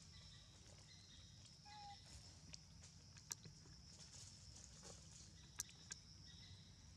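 Near silence: faint forest ambience with a steady high-pitched hum and a few faint clicks, plus one short chirp-like tone about two seconds in.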